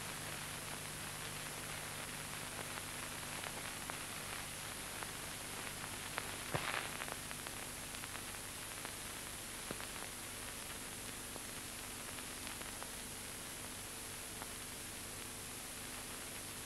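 Steady hiss and crackle of an old film soundtrack with no narration, over a faint low hum, with scattered clicks and a brief louder crackle about six and a half seconds in.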